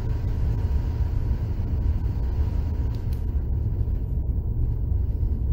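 Steady low rumble of room background noise, with a faint high steady hum above it.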